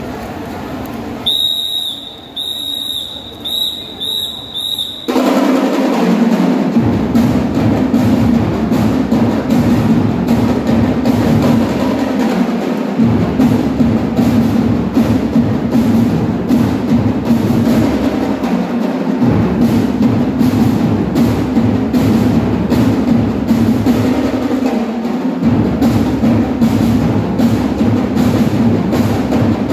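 About five short, high, steady-pitched whistle blasts, then a drum and lyre band's drums come in together and play loudly and continuously.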